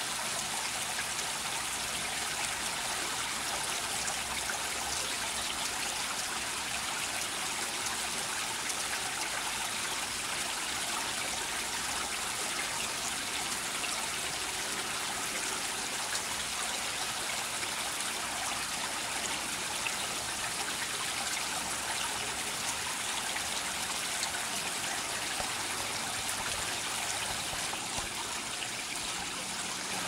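Small garden waterfall: water trickling and splashing steadily down over rocks.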